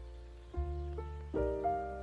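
Slow, soft piano music: held chords, with new notes struck about half a second in, at one second and twice more in the second half.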